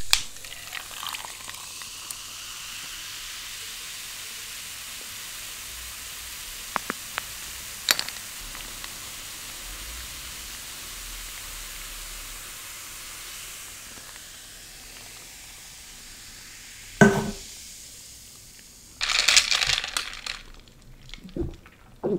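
Cola fizzing in a glass, freshly poured from a can: a steady carbonation hiss with a few tiny pops, fading out about 17 s in. Then comes a single sharp knock as something is set down, and near the end a short burst of noisy sound.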